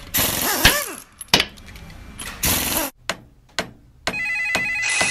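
Channel-intro sound effects in the style of workshop tools: short bursts of machine noise and sharp knocks, with a quick swooping sweep in pitch early on. About four seconds in, a steady whirring noise starts with a high beeping tone over it.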